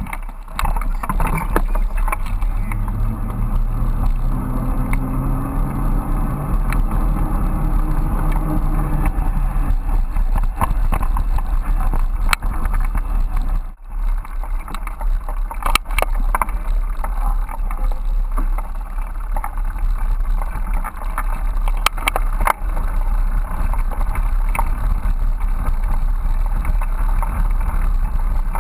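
Bicycle rolling along with a handlebar-mounted GoPro: a steady rumble and wind noise on the microphone, with occasional sharp knocks and rattles from bumps. A hum rises in pitch during the first several seconds.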